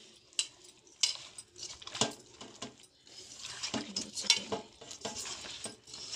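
Hands kneading and mixing raw fish pieces with salt and chili powder in an aluminium pot: irregular rustling and mixing with sharp knocks against the pot, the sharpest a little after four seconds in.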